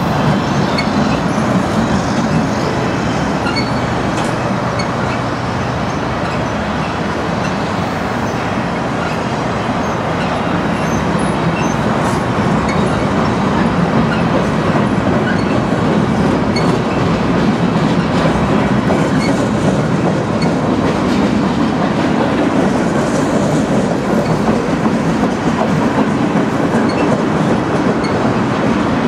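Loaded freight-train flatcars rolling past close by: a loud, steady rumble of steel wheels on the rails.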